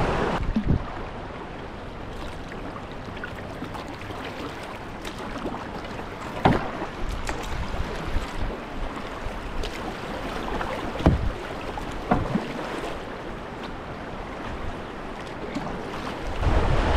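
River water rushing steadily past a whitewater kayak, with a few short splashes of the paddle blade dipping in, the sharpest about six and eleven seconds in. The rush grows louder near the end.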